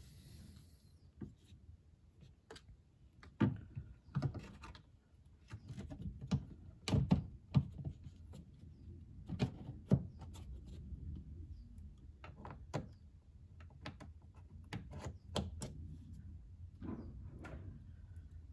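A plastic-framed car door speaker being handled and fitted back into the bare sheet-metal inner panel of a 2020 Toyota Corolla rear door, with its wiring connector plugged in: scattered short knocks, taps and clicks of plastic against metal, the loudest few in the first ten seconds.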